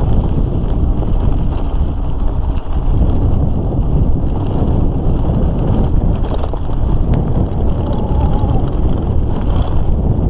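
Wind buffeting the microphone of a handlebar-mounted camera on a bicycle riding a dirt road, over the steady crunch of tyres on loose gravel and the rattle of the bike and its handlebar bag over bumps.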